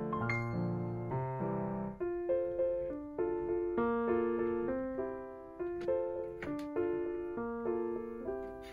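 Background piano music: a solo piano playing a gentle melody of single decaying notes, with lower notes underneath in the first couple of seconds.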